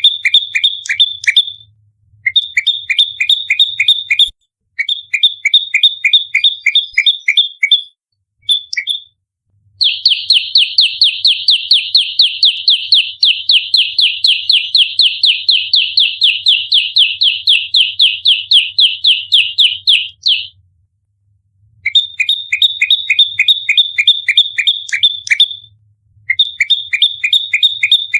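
Prenjak lumut songbird singing its rapid-fire fighting song: loud phrases of fast, evenly repeated sharp chirps, a second or two each with short pauses between. In the middle comes one long unbroken run of about ten seconds, at roughly five notes a second.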